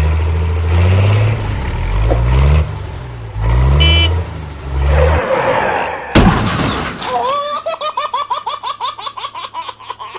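Dubbed cartoon sound effects for a toy tractor: a looped engine sound for its first half, a short horn toot about four seconds in, and a sharp crash about six seconds in as the tractor topples off the ramp. A rapid, pulsing cartoon laugh follows, about five pulses a second.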